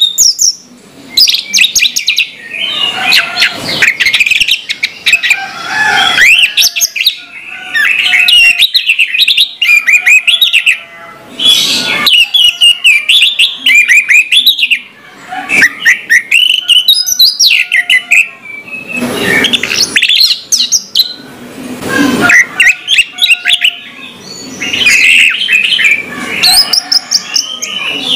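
Orange-headed thrush singing a loud, varied song of quick whistled phrases with rapid up-and-down sweeps, nearly continuous with brief pauses between bursts.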